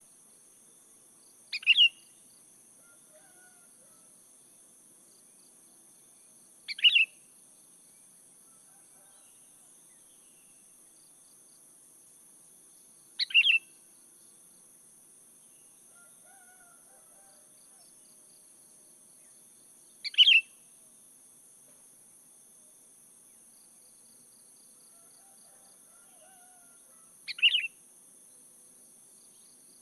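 Sooty-headed bulbul (kutilang) giving a short call five times, about every six to seven seconds, over a steady high hiss.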